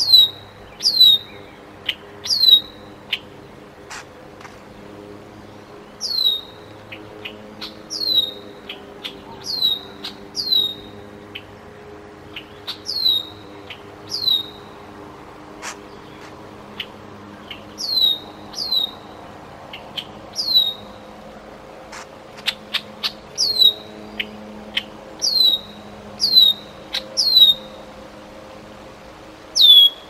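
Red-winged blackbird giving a thin, high, downslurred whistle about twenty times, in irregular bouts: its mobbing alarm at the young bald eagle. Scattered faint clicks sound underneath.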